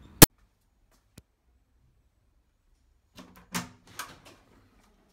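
A hotel room door being handled: one sharp, loud click near the start, then a quick run of knocks and clunks about three seconds in.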